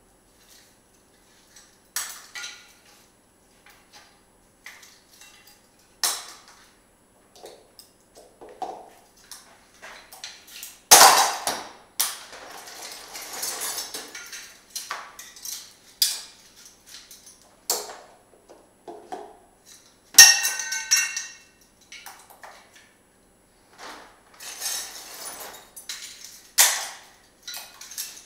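Scrap steel pieces clinking and clanking as they are handled and dropped onto a pile, with scattered light knocks and stretches of scraping. Two loud metal crashes stand out, about a third and two thirds of the way through, the second one ringing.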